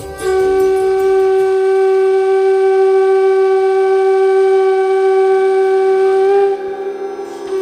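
Conch shell (shankha) blown in one long, steady, loud blast of about six seconds, its pitch lifting slightly just before it breaks off; a second blast begins at the very end.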